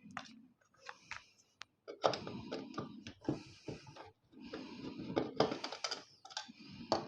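Screwdriver undoing screws from a PC power supply's sheet-metal case: scattered clicks, then two spells of rapid clicking and scraping of metal on metal, each a second or two long.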